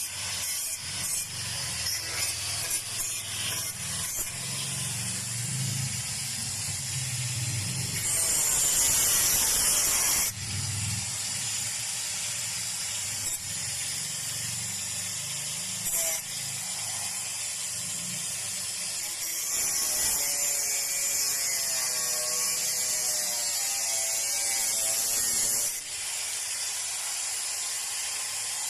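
Continuous mechanical metalworking noise, rattling and rasping, from work on a car's sheet-metal floor pan. Two louder stretches of high hiss stand out, one about a third of the way in and a longer one past the middle.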